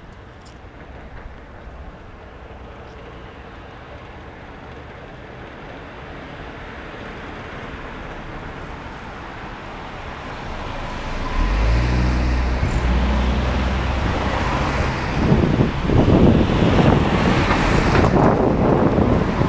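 A light flatbed truck approaching and driving past close by. Its engine hum swells in about halfway through, and the passing peaks near the end as a loud rushing, rattling noise of tyres on the road.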